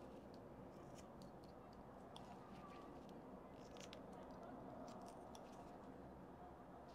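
Faint, irregular crisp clicks of a small carving gouge shaving thin chips from a small wooden panda figure, over a low steady background hum.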